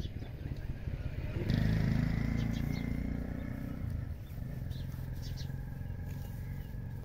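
A low, steady engine-like drone, louder for a couple of seconds starting about a second and a half in, with a few faint, short high chirps.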